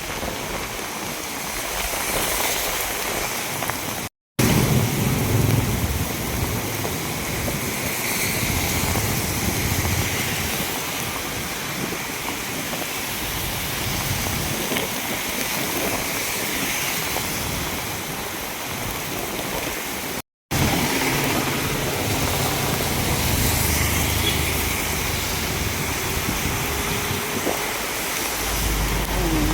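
Heavy rain falling in a steady hiss, with a low rumble at times, breaking off for a moment twice.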